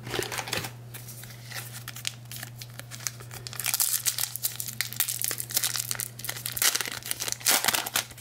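A foil-lined trading card pack being torn open and its wrapper crinkled by hand: a dense crackle of foil, busiest from about three and a half seconds in.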